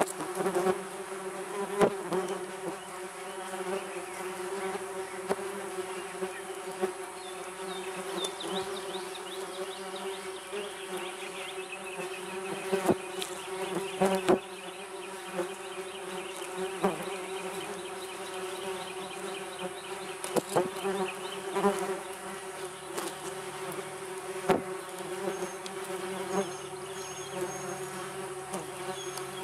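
Many yellowjackets buzzing at their ground nest, a steady overlapping drone of wings, with sharp ticks now and then.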